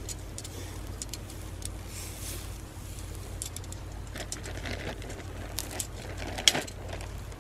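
Metal tongs clicking and scraping on a wire grill basket as chicken is turned over charcoal, with scattered light clicks and one sharp, louder click about six and a half seconds in. A steady low hum runs underneath.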